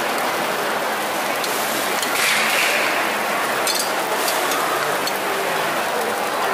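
Khanom baa bin coconut batter frying on a hot flat griddle: a steady sizzle that briefly grows a little stronger about two seconds in.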